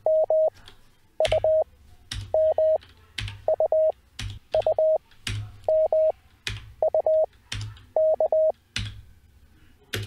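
Morse code practice tones at 630 Hz, single letters sent at 20 wpm character speed with wide Farnsworth spacing, about one character a second. Each character is followed by a single keystroke on a computer keyboard as the letter is copied.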